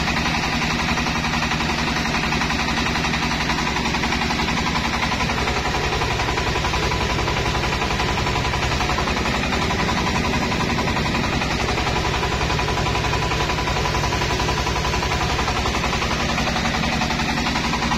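Engine-driven mobile rice mill with a Daichi N70 rice polisher running under load while milling rice. It makes a steady machine din with a fast, even pulsing from the engine and a steady whine.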